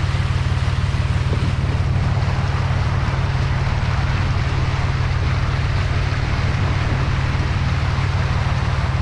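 Wheel loader's diesel engine running steadily while the machine wades slowly through flood water over a road, with water rushing and sloshing around it.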